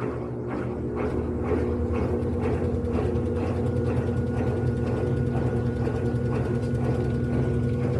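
Electrolux LED14 14 kg washing machine spinning: a steady motor-and-drum hum with a faint regular pulse about twice a second, and a faint high whine joining about halfway through.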